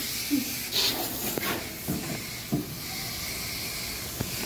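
Water spraying from a garden hose's trigger nozzle onto a window air conditioner's coil and casing to wash it out: a steady hiss with a few knocks and splashes.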